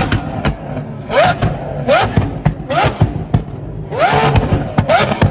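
Lamborghini V12 engine revved in about five sharp throttle blips in quick succession, the pitch shooting up on each, with crackles from the exhaust between them.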